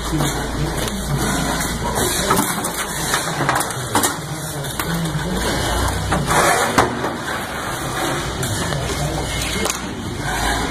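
A machine engine running, its low hum fading in the middle and returning near the end, with scraping and a few sharp knocks over it.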